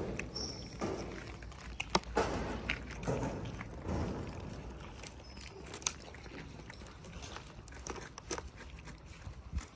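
Cats eating from clear plastic tubs: irregular chewing with scattered small clicks and knocks.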